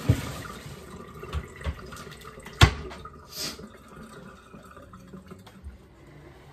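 Kitchen cleaning sounds: water at the sink with a few sharp knocks of items being handled and set down, the loudest a little over two and a half seconds in, followed shortly by a brief hiss.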